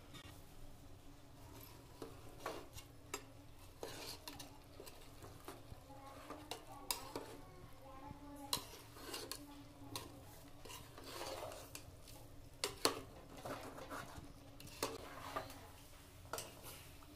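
Metal spoon stirring thick egg curry masala in a metal pot, scraping and clinking against the pot's sides at irregular intervals.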